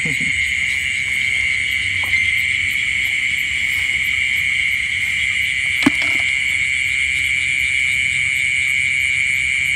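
Steady, unbroken chorus of insects such as crickets trilling, with two short knocks, a faint one about two seconds in and a sharper one about six seconds in.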